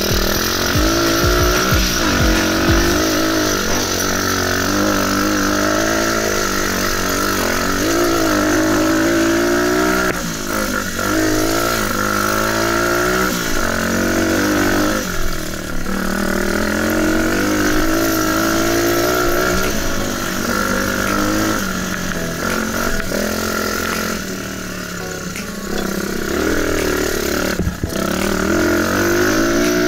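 Enduro dirt bike engine being ridden hard, revving up and dropping back again and again as the rider works the throttle and gears, over a steady hiss.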